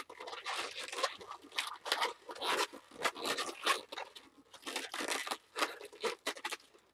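Inflated latex modelling balloon rubbing and crinkling in the hands as it is twisted into ear twists, in irregular bursts.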